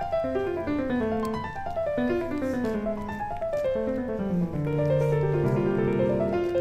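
Piano music: flowing runs of notes stepping downward, settling into held chords near the end.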